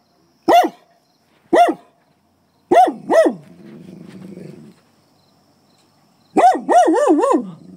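Dog barking sharply: single barks about a second apart, then a pair, then a quick run of four or five near the end. These are warning barks at a black bear in the garbage, meant to scare it away.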